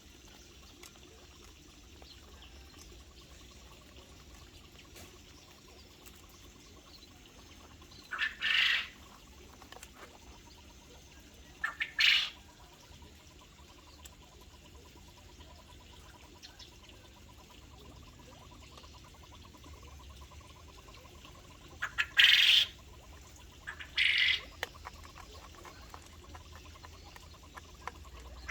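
Aviary birds calling: four short, loud calls spread apart, each about half a second, with a low steady background between them.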